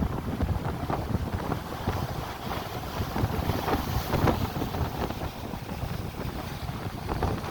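Wind buffeting the microphone in an uneven low rumble, over a steady wash of sea surf on the shore.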